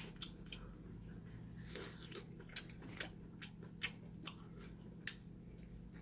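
A person chewing a mouthful of lamb, with a string of small wet clicks and smacks from the mouth.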